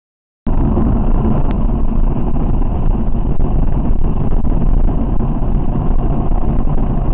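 Steady road and engine noise heard from inside a car's cabin at highway speed, a constant low rumble that starts abruptly about half a second in.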